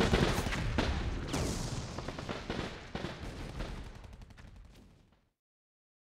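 Battle sound effect of rapid gunfire, a dense crackle of shots that fades steadily and dies away about five seconds in.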